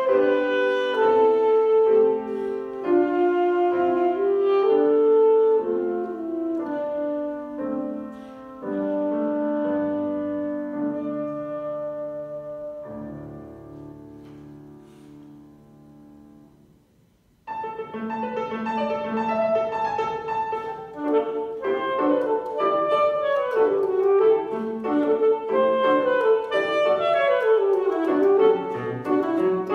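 Saxophone and piano playing a classical piece. The music grows gradually softer into a quiet, low passage and almost stops about seventeen seconds in, then both come back in loudly with quick, moving notes.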